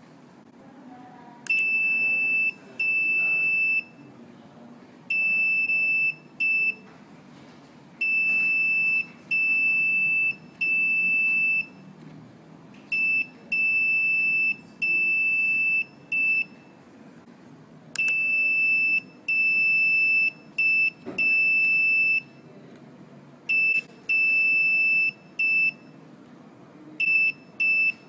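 Electronic buzzer on a Nuvoton NUC140 microcontroller learning board beeping Morse code, one steady high tone keyed into long dashes and short dots. The beeps come in groups, one per letter, with short pauses between the letters.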